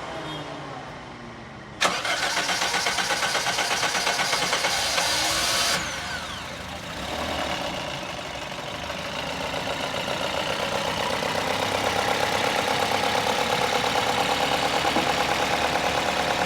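Toyota Corolla GLi petrol engine starting about two seconds in, running loudly for a few seconds, then dipping and settling into a steady idle with a fast, even ticking. The mechanic takes this ticking for tappet (valve clearance) noise, and the car also logs a P1604 code.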